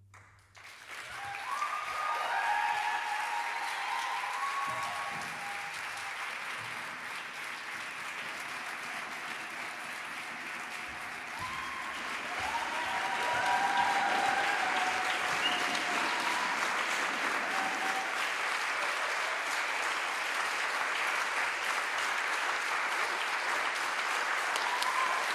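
Theatre audience applauding, breaking out suddenly from silence, with a few whoops and calls over the clapping and growing louder about thirteen seconds in.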